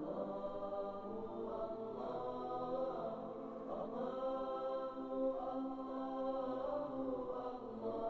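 Slow background music of long held chords that change every second or two.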